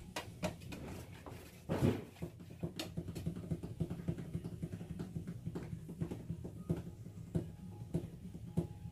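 Primer being stirred in a tin with a stick: quick, irregular taps and scrapes against the container, several a second, with one louder knock about two seconds in.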